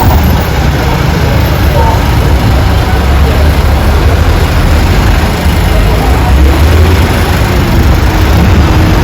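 Loud, steady road-vehicle noise with a heavy low rumble, as of traffic or a moving vehicle.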